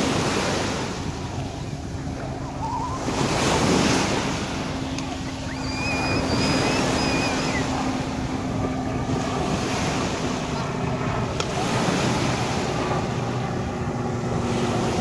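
Small waves breaking and washing up a pebbly beach, the surf swelling and fading every few seconds.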